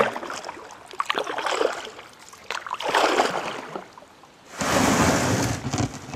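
Kayak paddling in shallow river water: uneven splashes and drips from the paddle strokes, with a few light knocks. Near the end comes a louder, even rush of noise lasting about a second.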